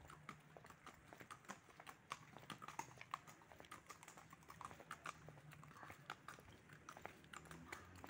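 Faint, irregular clip-clop of a horse's hooves on a paved road as it walks.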